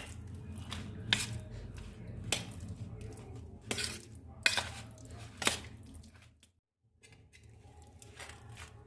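A spoon clinking and scraping against a bowl about once a second while diced potatoes, spices and bhujia are stirred together for aloo chaat, with a short break a little past the middle.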